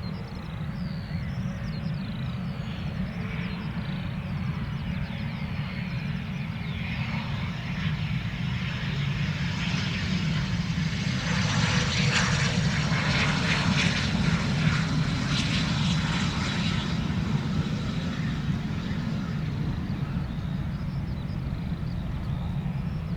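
Fixed-wing aircraft engines running, a steady low rumble with a broad hiss that swells from about ten seconds in to about seventeen, then eases.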